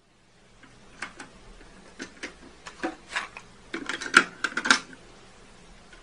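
Plastic clicks and clacks of a cassette tape being handled and loaded into a JVC stereo double cassette deck, with the sharpest clacks a little after four seconds in, over faint tape hiss.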